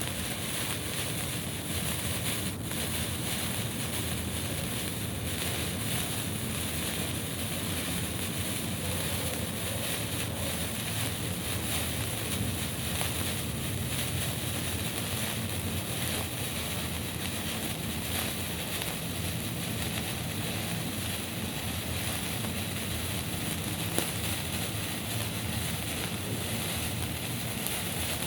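Lit signal flare burning with a steady, even hiss, and one sharp crack near the end.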